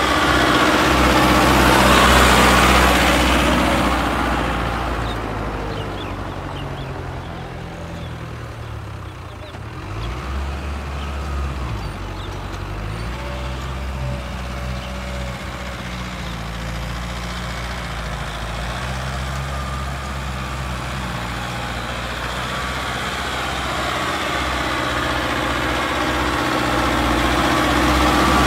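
Mahindra Arjun Novo 605 DI-i tractor's turbocharged diesel engine running steadily under load as it pulls a cultivator through the soil. It is loudest as it passes close about two seconds in, fades through the middle, and swells again near the end as it comes back.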